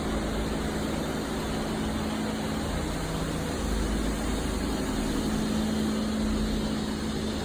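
A steady mechanical hum with a low drone, which grows a little stronger about five seconds in.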